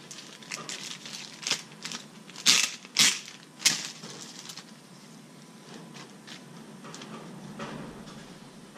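Plastic bag crinkling and tearing as it is handled and pulled open: a run of crackly rustles with three loud rips in the middle, then quieter rustling.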